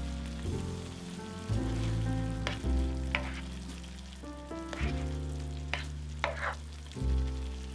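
Food frying and sizzling in a pan, with a few sharp clicks of a utensil stirring or tapping against it, over background music of slow held chords with a deep bass.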